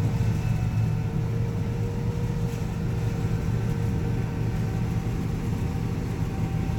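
Combine harvester running steadily while harvesting soybeans, heard from inside the cab: a constant low drone of engine and threshing, with a faint steady whine above it.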